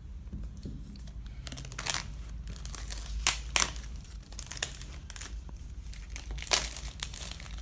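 Packaging being handled and unwrapped by hand: crinkling and tearing that starts about a second and a half in, with a few louder sharp snaps.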